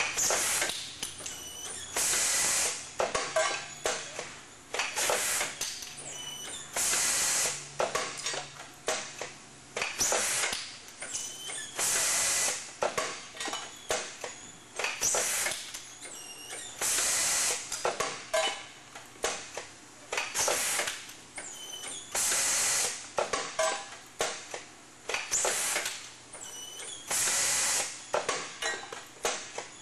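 System Packaging 1300 roll-stock tubing bagger cycling. A short loud hiss comes about every two and a half seconds, with clicks and clacks of the mechanism between them.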